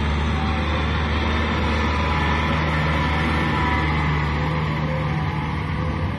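Kubota M6040SU tractor's four-cylinder diesel engine running steadily under load, pulling a rotary tiller through wet paddy mud.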